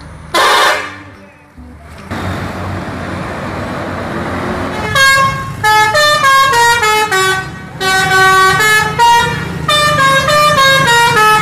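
Indonesian tour bus's musical "telolet" horn playing a quick tune of stepping notes in several bursts over the last six seconds. Before it there is a single short horn blast about half a second in, then a steady rush of noise.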